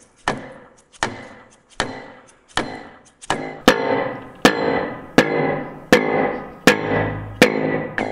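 Hand striking a pine block held against the end of a 4½-inch vent pipe, driving the pipe through a slightly undersized hole: a steady series of knocks, about one every three-quarters of a second, each ringing on in the pipe. The knocks get louder about halfway through.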